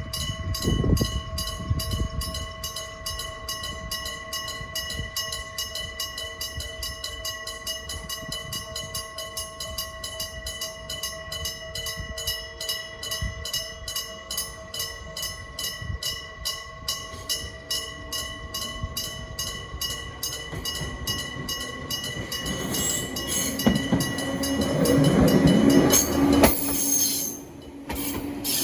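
An old electric-bell level-crossing warning bell (denrei type) rings in a rapid, steady clatter of strikes. Near the end a Gakunan Railway train passes the crossing and grows loud, and the bell and train noise drop off sharply just before the end.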